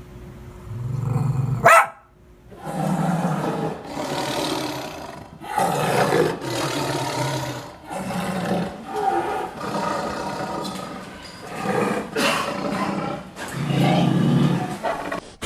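An animal roaring and growling in a series of loud calls, each about a second long. Before them, a short rising cry ends in a sudden break about two seconds in.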